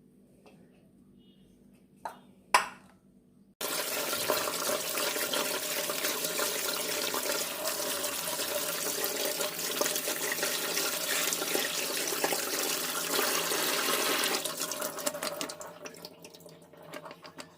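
Kitchen tap water running onto cut potatoes as they are rinsed. A couple of short knocks come first, then the water starts suddenly a few seconds in and tapers off near the end.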